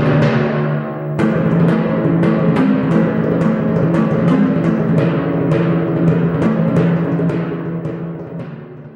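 Instrumental music with timpani-like drum strikes, about two or three a second, over held low notes, fading out near the end.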